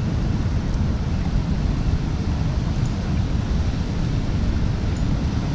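Wind buffeting the camera microphone: a steady, loud low rumble with rapid fluctuations.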